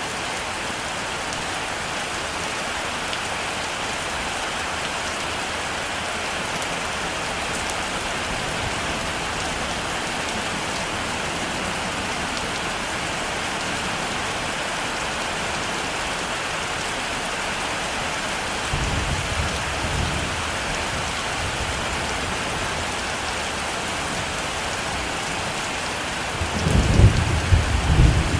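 Heavy rain falling steadily, with low rolls of thunder: a short one about two-thirds of the way through and a louder one near the end.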